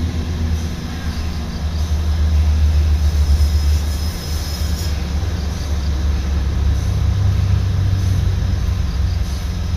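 Diesel engine of a large log-handling forklift running with a deep, steady rumble as it drives, a little louder between about two and four seconds in.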